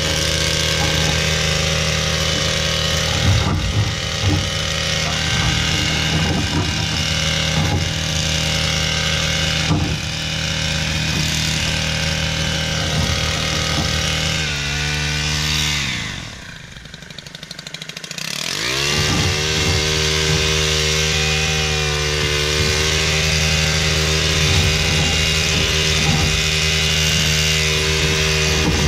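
Gas-engine Stihl hedge trimmer running at full throttle. About halfway through the throttle is let off: the engine note falls to a low idle for a couple of seconds, then revs back up to full speed and holds there.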